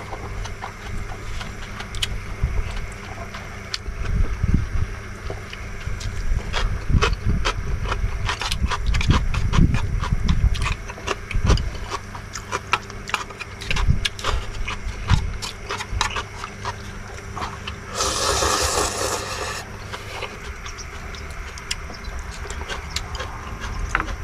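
A person eating ramyeon noodles: slurping and chewing, with many light clicks and knocks of utensils and bowl, and a brief rushing sound about eighteen seconds in.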